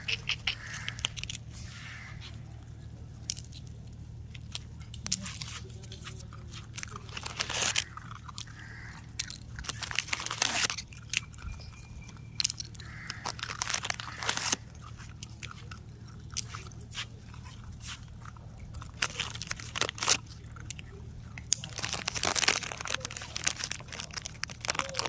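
Puppies crunching and chewing food, irregular crunches coming in clusters, the busiest stretches near the middle and end.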